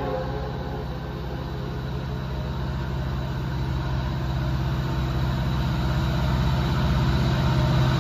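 Diesel locomotive engine running with a steady low drone, growing gradually louder between horn blasts.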